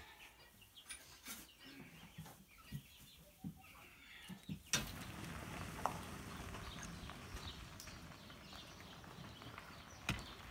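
Faint chicken clucking and a manure fork scraping compost in a cart. About halfway through there is a sharp click, then a steady outdoor hiss with another click near the end.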